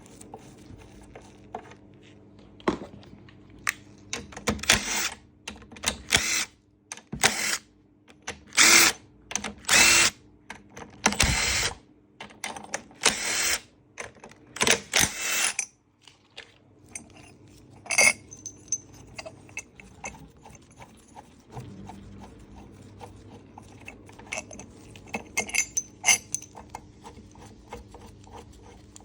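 A power driver running in short bursts, about a dozen in the first half, as the bolts of a Briggs & Stratton lawnmower engine are undone to get at its piston. After that come light metallic clinks and taps as the engine parts are handled.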